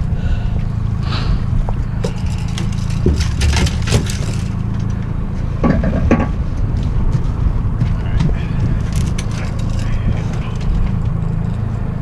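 A boat's outboard motor running steadily at trolling speed, with scattered knocks and scrapes of gear being handled in the boat, loudest about three to six seconds in.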